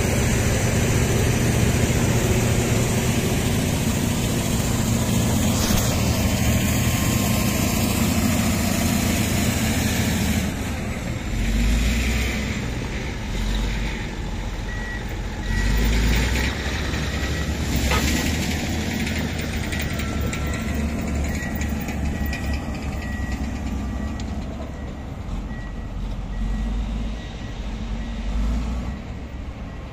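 Komatsu D155A bulldozer's diesel engine working hard, easing off about ten seconds in and then surging in low pulses. A steady beeping backup alarm sounds through the second half.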